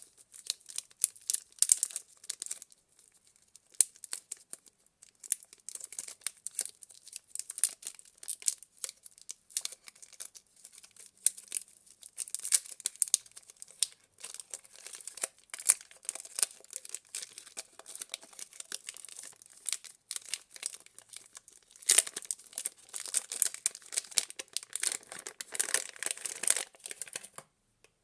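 Soap packaging being unwrapped and torn open by hand: a long run of crinkling and tearing with many sharp crackles, busiest in the last few seconds and cutting off just before the end.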